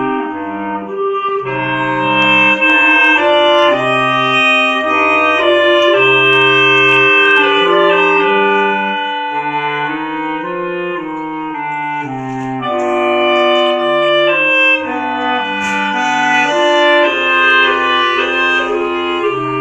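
Clarinet quartet of three clarinets and a bass clarinet playing a Spanish processional march in close harmony, the bass clarinet stepping through separate low notes under the held chords of the upper clarinets.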